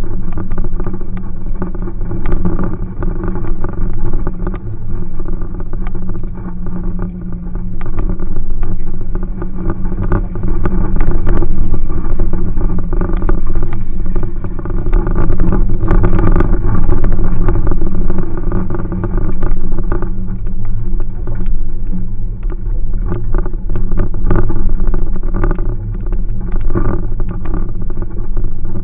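Jeep Cherokee engine running while crawling along a rough dirt trail, heard from inside the cab, with frequent knocks and rattles from the body and suspension over the bumps.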